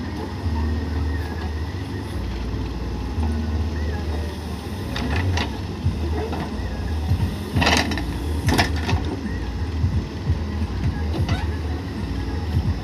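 Cat 424 backhoe loader's diesel engine running, its drone swelling and easing with the load as the backhoe digs and dumps soil into a tractor trolley. Two sharp knocks a little under a second apart come about eight seconds in.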